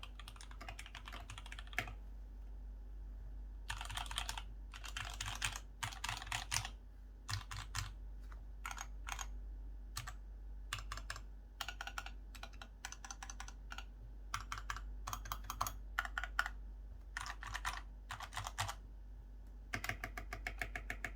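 Typing on a GK68X mechanical keyboard with lubed Gateron White switches in a foam-filled case. Quick runs of keystrokes about a second long, broken by short pauses and single key presses.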